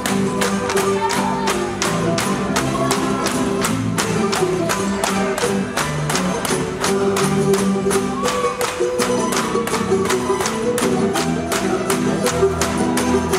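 Tinikling music with a steady clacking of bamboo poles struck on the stage floor and against each other, about three knocks a second.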